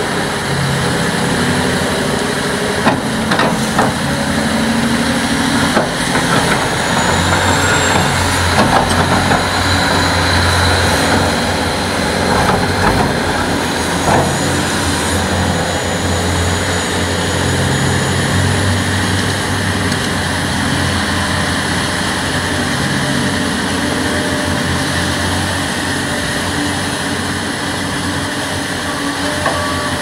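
A large Hitachi hydraulic excavator's diesel engine running steadily under load as its bucket digs into stony soil, with occasional knocks and scrapes. A reversing beeper starts near the end.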